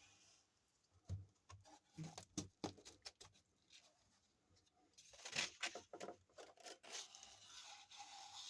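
Sandpaper being handled and creased around a wooden emery stick. Light ticks and crinkles come first, then a scratchy rasping about five seconds in, as it is scored with a knife or rubbed into the fold.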